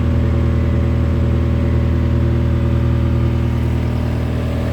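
Case SR175 skid steer loader's diesel engine running steadily at a low idle, dropping slightly in level near the end.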